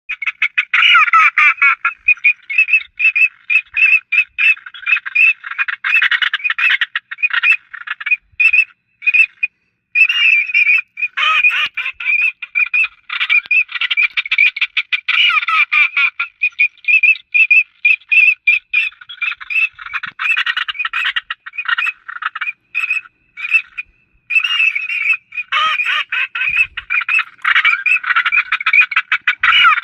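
A flock of birds calling together in a rapid, continuous high chatter, with a few brief pauses.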